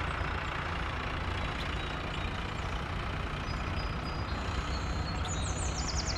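Tractor engine running steadily, with a few short high chirps near the end.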